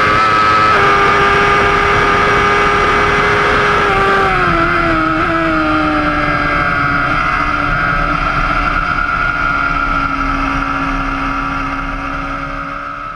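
BMW S1000RR's inline-four engine running at high revs with wind rush over the microphone. About four seconds in, the engine note drops in a few quick steps as the rider brakes and downshifts. It then holds a steady lower note through the corner before fading out near the end.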